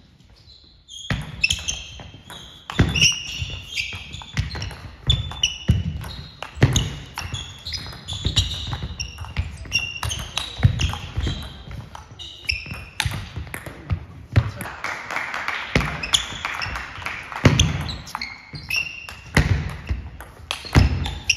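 Table tennis rallying: the plastic ball clicking in quick succession off rubber-faced rackets and the table top, with short high squeaks of the players' shoes on the sports-hall floor between strokes.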